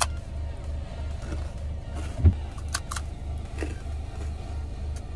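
Chewing a crunchy puffed-rice laddu: a few short crunches, the loudest a thump about two seconds in, over a steady low pulsing hum of about three pulses a second.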